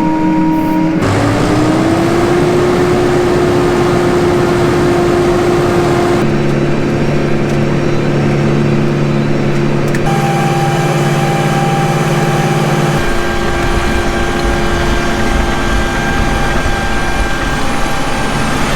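Engine of a farm vehicle running steadily. Its pitch rises briefly about a second in, and its tone changes abruptly a few times.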